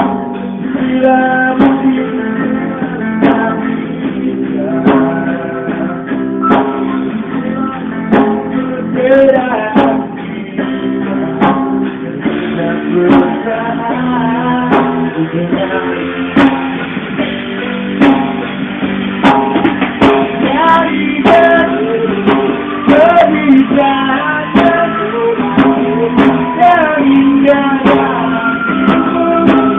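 Live band music led by guitar, with drum hits and a melody line, recorded with a muffled sound that lacks any high treble.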